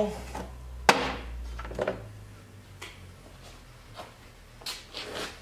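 A sharp metal knock about a second in, then a lighter one and a few faint clinks: a sheet-steel side panel and hand tools being picked up and handled on a steel workbench.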